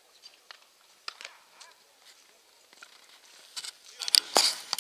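A few faint scattered knocks, then a cluster of loud, sharp clicks and knocks close to the microphone beginning about three and a half seconds in.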